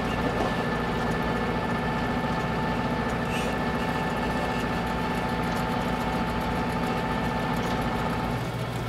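New Holland tractor's diesel engine running steadily as the tractor drives, with a steady whine above the engine note. A little before the end the higher tones fade out and the low rumble comes forward.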